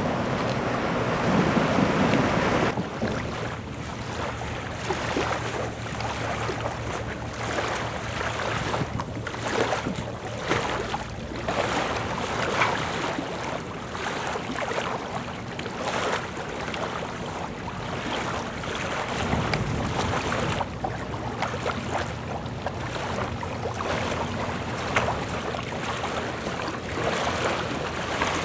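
Wind gusting on the microphone over lake water, with a faint steady low hum underneath.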